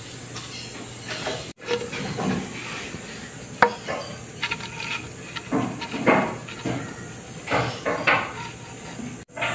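Irregular knocks and clatter of household objects being handled and set down, over a faint steady hiss.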